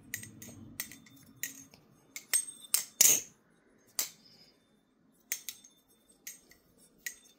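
Titanium balisong being flipped: the handles clack against each other and the blade in irregular sharp clicks, several with a short metallic ring, the loudest about three seconds in.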